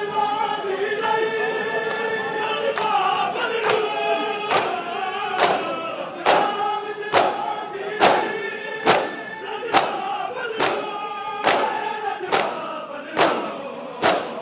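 A large crowd of men chanting a Muharram mourning lament in unison. From about three seconds in, a loud, even beat of hand strikes lands a little faster than once a second: the crowd striking their chests in matam.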